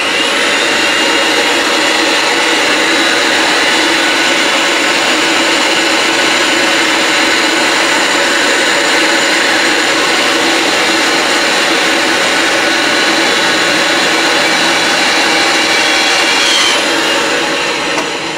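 Ridgid 300 power pipe threader's motor spinning up, then running steadily as the chuck turns the pipe back through the die head to clean up the threads. It winds down about a second and a half before the end.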